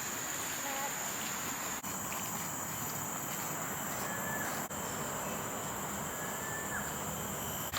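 Steady high-pitched drone of insects in tropical forest, with a couple of faint short whistles, likely birds.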